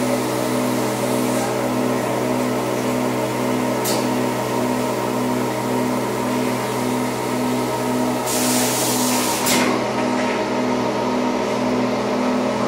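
Thermoforming machinery running with a steady electric hum and a pulsing tone. About eight seconds in comes a burst of hissing air lasting over a second, and there is a brief tick near four seconds.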